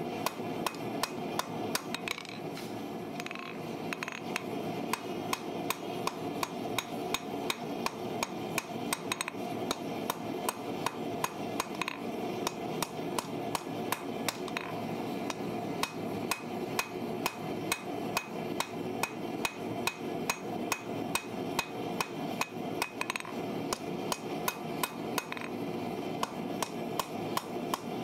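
Hammer blows on a red-hot farrier's rasp laid on a steel anvil, the bar being forged. The strikes come in a steady rhythm of about three a second, with a short let-up about two seconds in.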